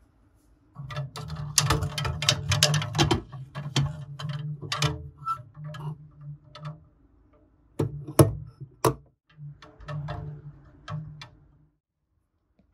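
A wooden clothes hanger clicking and rattling against its metal hook and clips as it is handled, with the dull rumble of handling, in irregular clusters of sharp clicks.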